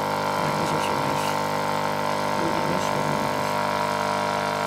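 Philips bean-to-cup espresso machine running with a steady hum as it dispenses coffee from its twin spout into a cup of milk.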